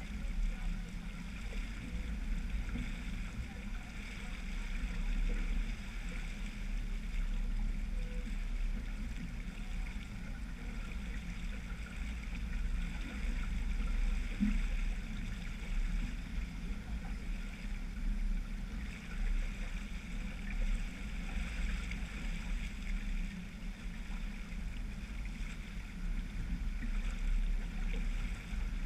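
Sailboat under sail: water washing along the hull and wake, with wind rumbling on the microphone, a steady unbroken noise that swells and eases.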